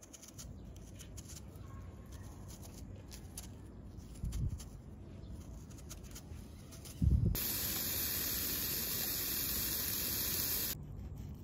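A knife faintly scraping as it peels an Asian pear, with a couple of low bumps. About seven seconds in comes a loud, steady sizzle of tteokgalbi (Korean minced-beef patties) frying in a pan, which cuts off abruptly about three seconds later.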